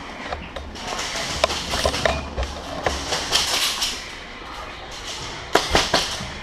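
Airsoft guns firing on semi-auto: scattered sharp cracks and knocks, then a quick string of three shots near the end.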